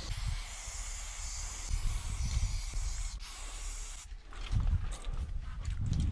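Aerosol spray can hissing steadily as black outline paint is sprayed onto a concrete wall. The hiss stops about four seconds in, and footsteps crunch and scuff on gravel.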